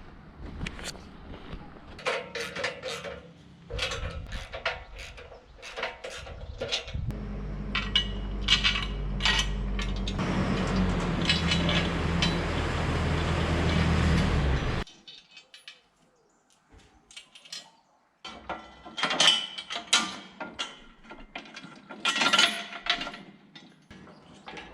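Metal clanks and ratchet-like clicks from working a Woodland Mills HM126 portable sawmill, with an engine running for about eight seconds in the middle, a rushing noise building over it from about ten seconds in. The engine cuts off suddenly, then the clanking resumes.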